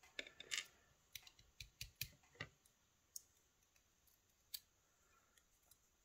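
Faint, sharp metallic clicks and ticks from steel tweezers handling small pins and springs taken out of a brass lock cylinder. There is a quick cluster of clicks in the first two and a half seconds, then a few isolated ticks.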